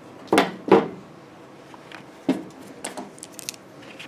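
Hand tools being picked up and handled: two short knocks in the first second, then a few lighter clicks and taps.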